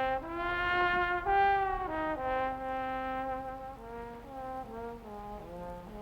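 Dramatic brass music cue, trombones and trumpets holding a sequence of sustained chords that step downward and fade.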